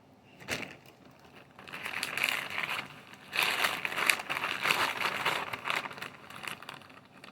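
Packaging crinkling and rustling in irregular handfuls as the drill's brush attachments are handled, after a single knock about half a second in.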